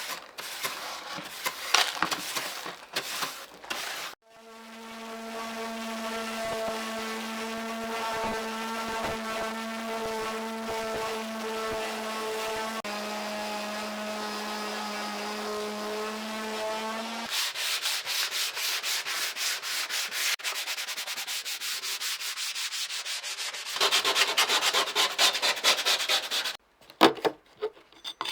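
Sanding and abrasive work during an antique ice box restoration. A small electric tool runs with a steady pitched hum for about thirteen seconds, and its pitch dips slightly midway. Then come fast repeated rubbing strokes.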